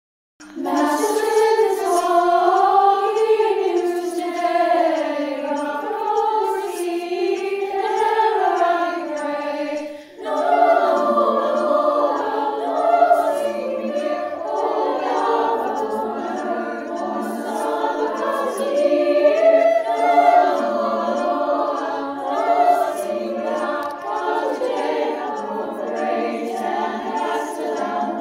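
High school choir singing in harmony, with a short break about ten seconds in.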